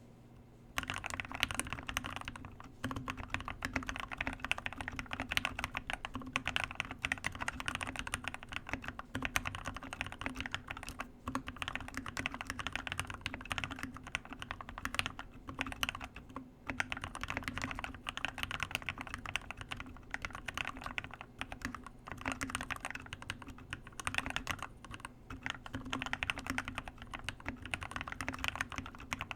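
Continuous typing on a modded Keychron K6 mechanical keyboard with Gateron Black Ink switches, lubed and filmed with Krytox 205g0, giving a deep "thocc" on each keystroke. The typing starts about a second in and runs with only brief pauses.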